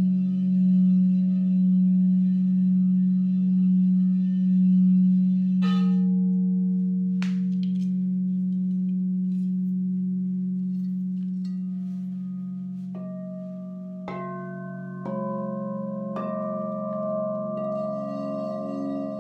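Singing bowls ringing. A low bowl holds a long, wavering tone that slowly fades. A bowl is struck about six seconds in, then several are struck one after another from about thirteen seconds, each adding a higher ringing note over the rest.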